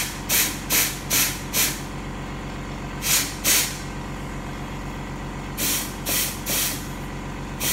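Short blasts of compressed air from an air nozzle into a Mercedes-Benz 722.9 7G transmission clutch drum, in quick puffs about 0.4 s apart: four, then two, then four more. This is an air pressure test, checking that the clutch applies and the drum holds air without leaking.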